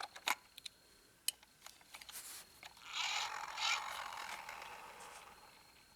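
Light clicks and taps of a small die-cast toy car being handled, then about three seconds in a scraping, rolling sound that fades away over a couple of seconds.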